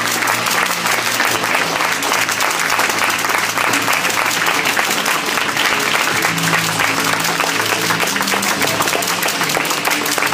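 Audience applauding steadily, with music playing underneath in held low notes.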